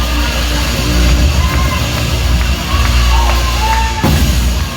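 Live church band music: drums under steady held chords, with voices calling out faintly over it.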